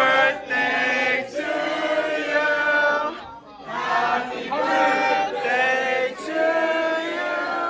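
A group of party guests, men and women, singing together in held phrases, with a short break about three seconds in.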